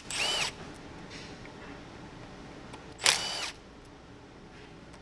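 A small electric screwdriver whirring in two short bursts, each lasting about half a second with a whine that rises and falls: one at the start and another about three seconds in. It is backing out fasteners while the solenoids come off the transmission's mechatronic unit.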